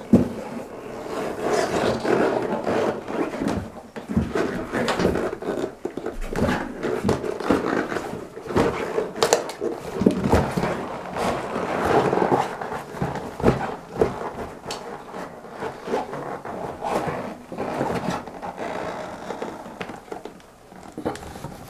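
Rubber wellington boots being pulled off and on: irregular rubbing and scraping of rubber, with scattered knocks of the soles on a tiled floor. It gets quieter near the end.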